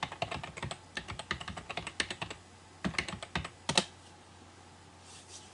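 Typing on a computer keyboard to enter a web address: a quick, irregular run of key clicks that stops about four seconds in.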